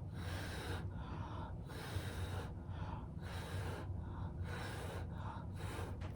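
A person blowing acrylic paint across a canvas by mouth instead of with a hair dryer: a run of strong breaths, each puff of air followed by a quick intake, about once a second, over a low steady hum.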